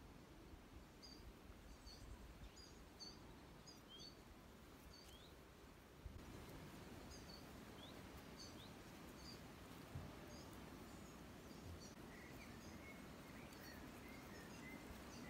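Near silence with faint birdsong: short high chirps about twice a second, and a lower run of notes near the end, over a low background rumble.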